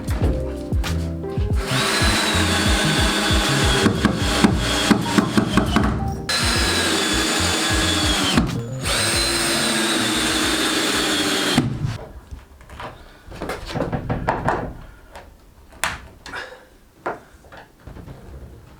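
Power drill running in three long runs of several seconds each, its motor whine steady and dipping in pitch as it slows at the end of a run. After that come quieter scattered knocks and scraping.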